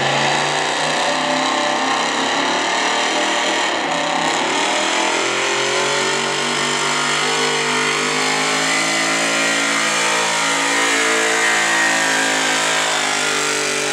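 A stock gasoline Ford pickup's engine running hard at high revs under full load while it pulls a weight-transfer sled. The revs sag about four seconds in as the sled's weight builds, then climb back and hold steady.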